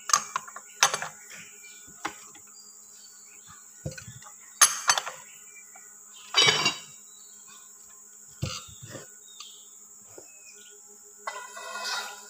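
Sharp metal knocks and clanks as a long steel bar is worked against a gear shaft in a cast-iron differential housing: scattered single strikes, a longer clatter about halfway through and a rattling run near the end. A steady high insect buzz runs underneath.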